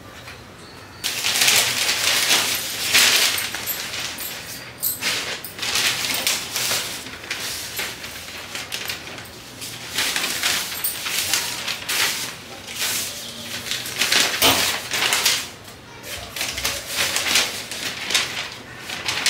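Rustling and brushing of things being handled and moved about, in uneven bursts with short pauses.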